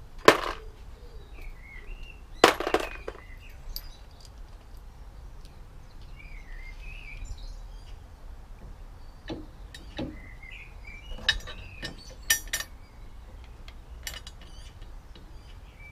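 Scattered metallic clinks and clicks of small steel spacers, bolts and needle-nose pliers being handled, the loudest near the start and about two and a half seconds in, with a cluster near the end. Birds chirp now and then in the background.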